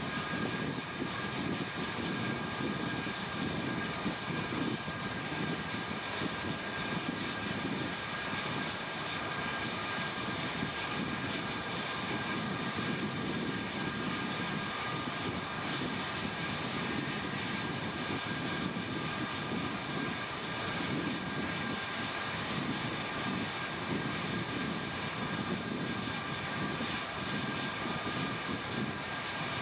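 Jet engine of an F-8 Crusader running steadily on the catapult: a constant high whine over a rushing noise, with no change in power.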